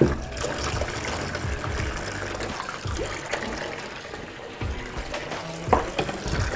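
Water sloshing and trickling in a stainless-steel sink as a rifle scope is washed with a soapy sponge, with a brief pitched sound near the end.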